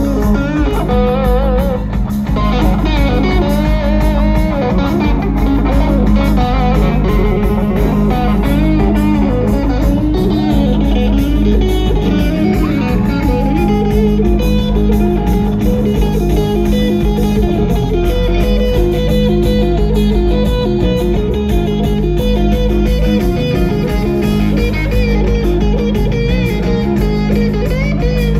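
Live electric guitar lead on a sunburst Les Paul-style guitar, with notes bent up and down, over a steady bass line.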